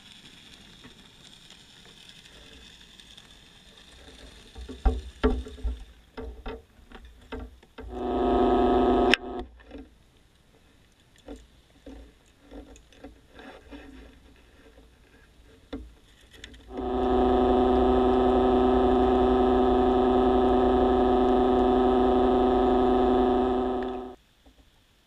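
A steady pitched motor hum heard underwater. It switches on for about a second near the 8-second mark, then again for about seven seconds in the second half, starting and stopping abruptly. Scattered knocks and clicks come between.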